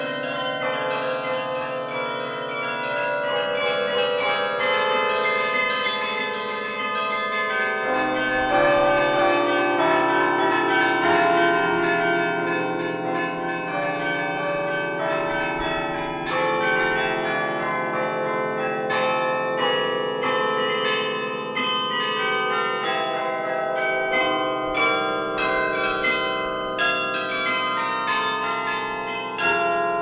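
Hoover Institution carillon bells played by a carillonneur: a tune of many overlapping, ringing bell notes, with quicker, sharper strikes in the second half.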